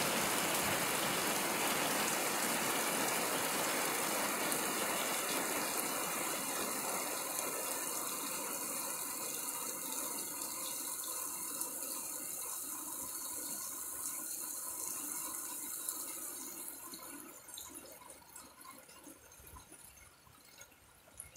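Heavy rain falling in a steady rush, slowly fading and then easing off sharply over the last few seconds to a faint patter with a few scattered ticks.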